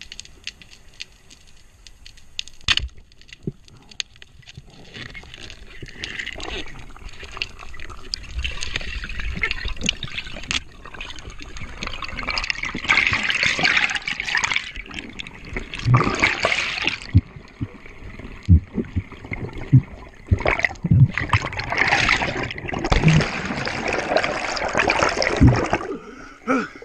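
Rushing, bubbling water picked up by an underwater camera during a struggle with a goliath grouper, with many sharp clicks and several low thumps. It is quieter for the first few seconds and grows busier about halfway through.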